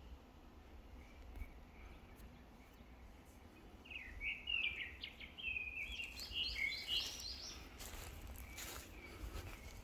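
A songbird singing a quick run of high chirping notes, starting about four seconds in and lasting about three seconds, over faint outdoor background noise. A few faint taps near the end.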